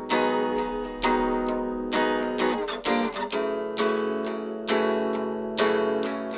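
Music: an acoustic guitar strumming chords, a fresh strum about every second, each ringing on.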